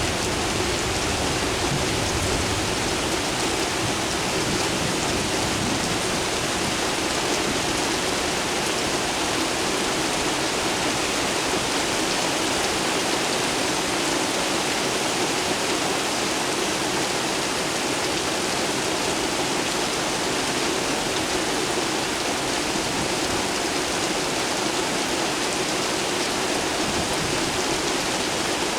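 Steady, even rain falling, with no thunder.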